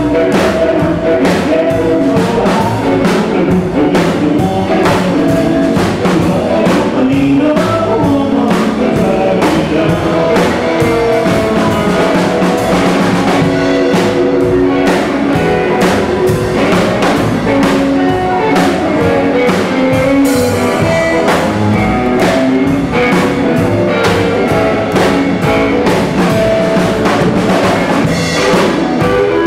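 Rockabilly band playing live: hollow-body electric guitar, upright double bass and drum kit in a steady driving rhythm.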